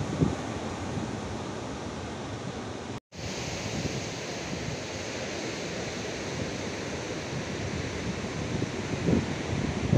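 Waves breaking on a rocky shore under steady wind, with gusts buffeting the microphone. The sound drops out for an instant about three seconds in, then wind on the microphone and surf carry on.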